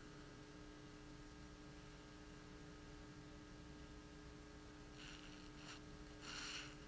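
Near silence: room tone with a steady low hum, broken by two brief faint rustling sounds near the end, the second a little louder.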